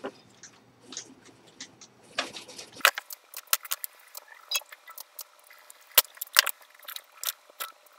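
Irregular small clicks and light rattles from handling small parts and tools while wiring the controller, with the sharpest clicks about six seconds in.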